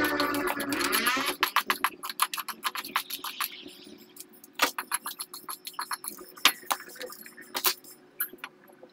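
Hammer striking a cold chisel into a concrete-block wall to cut a chase for electrical conduit: a quick run of sharp metallic taps for the first few seconds, then slower, scattered single strikes.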